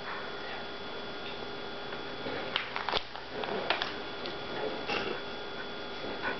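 Airedale terrier sniffing and nosing into an open suitcase: a few short sniffs and rustles, clustered in the middle, over a steady faint hum.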